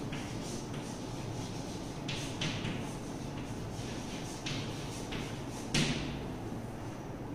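Chalk writing on a blackboard: a run of short, scratchy strokes, with a sharper tap near the end as the full stop is put in, over a steady room hum.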